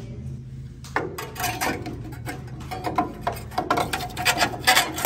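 Irregular plastic and metal clicks and knocks as a sealed-beam headlight and its metal retaining ring are handled and pushed into the headlight bucket, starting about a second in. A steady low hum runs underneath.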